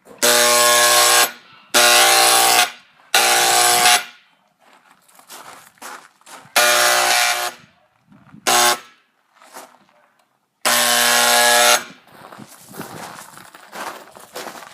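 Handheld electric paint sprayer buzzing in repeated trigger bursts, about six of them, mostly around a second long, with the hiss of paint spray over the buzz, on a first test of spraying.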